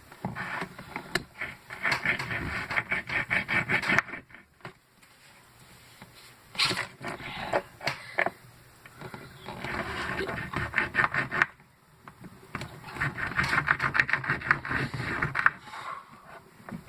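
A blade sawing and scraping at a battery's casing in three bouts of rapid rasping strokes. The casing resists the cut and the blade is barely going in.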